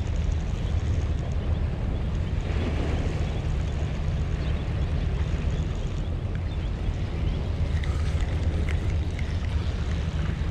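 Steady low wind rumble buffeting the microphone, with a few faint light ticks about eight seconds in.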